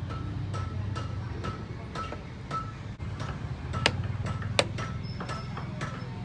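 A sickle's wooden handle knocked repeatedly against a steel anvil block to drive the tang home: light ringing knocks about twice a second, with two sharper, louder strikes a little past the middle. A steady low hum runs underneath.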